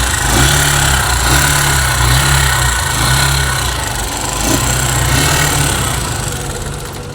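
Bajaj Discover ST 4V single-cylinder engine idling with a tick-tick-tick from the valve train, which the mechanic takes for tappet noise from valve clearances that need setting.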